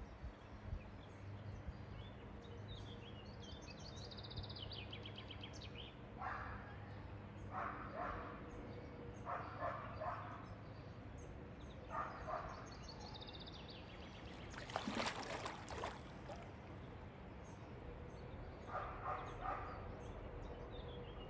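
Riverbank ambience: a steady low wash of background noise with songbirds trilling now and then. Short barking calls come in bouts of two or three several times, at a distance. A brief burst of noise comes about fifteen seconds in.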